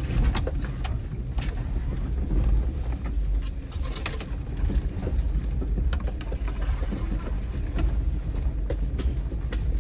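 Off-road vehicle's engine running low and steady as it crawls along a rough dirt trail, with scattered clicks and knocks as it bumps over the ground.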